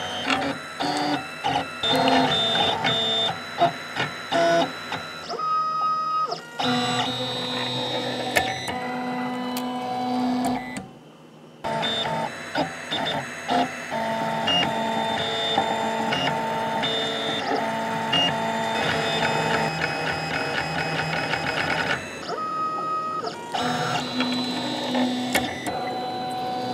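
Printrbot Simple Metal 3D printer's stepper motors whining in quickly shifting tones as the print head moves back and forth laying down plastic. The sound drops out briefly about eleven seconds in.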